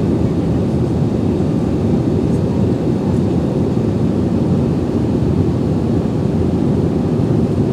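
Steady cabin noise inside an Airbus A320-family jet airliner in flight: the low, even drone of the turbofan engines and the airflow over the fuselage, unchanging throughout.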